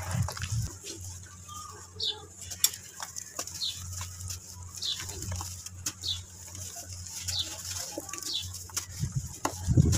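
A soft chunk of dry red dirt being crumbled by hand over a basin of water, with small clicks and crumbs dropping into the water, and a louder low thump near the end. A bird chirps in the background, a short falling chirp about once a second, over a low steady hum.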